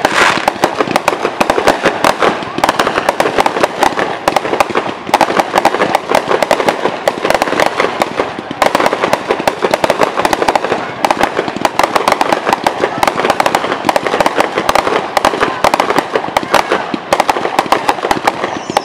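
Aerial fireworks display: shells bursting and crackling in a dense, unbroken barrage of bangs, many per second.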